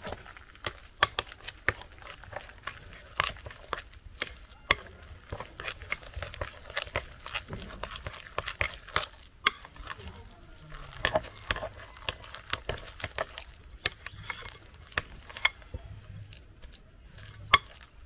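Hands mixing grated plantain and corn starch in a glass bowl, with frequent irregular sharp clicks and taps, several a second.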